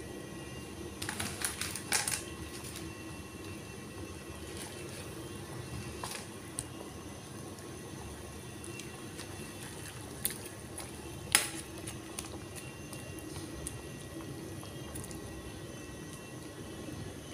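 Pot of sinigang fish soup simmering on a gas burner, a steady bubbling sound, with a few sharp clinks of a metal ladle against the pot, the loudest about eleven seconds in.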